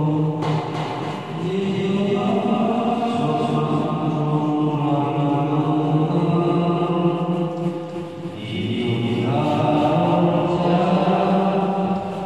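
A group of people singing an anthem together in long held notes. The singing breaks briefly about a second in and again around eight seconds in.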